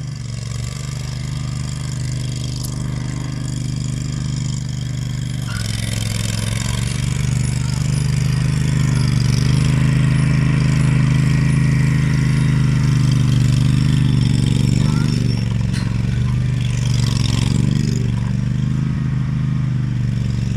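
Engine of an Agria 9600 remote-controlled tracked mower running steadily, getting louder as the mower comes closer. The engine note changes about five seconds in.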